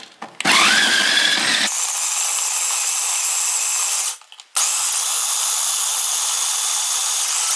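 Electric food processor chopping dates and almonds: the motor starts with a rising whine, then runs steadily, stops briefly about four seconds in and runs again.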